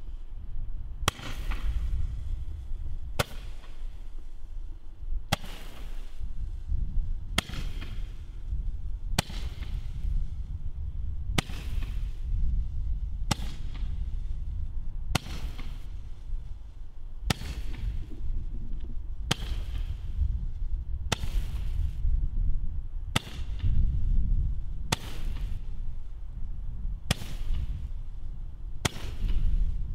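Weco Magical Shots 30-shot Roman candle firing single shots at an even pace of about one every two seconds. Each shot is a sharp pop with a short hiss as a coloured star is launched. A steady low rumble runs underneath.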